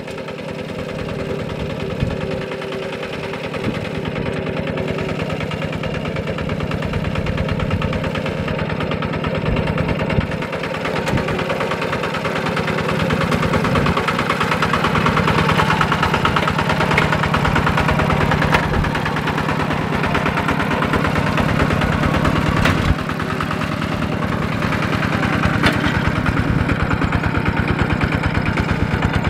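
Kubota RT140 walk-behind tractor's single-cylinder diesel engine running steadily as it works a rice paddy on steel cage wheels. It grows louder over the first half.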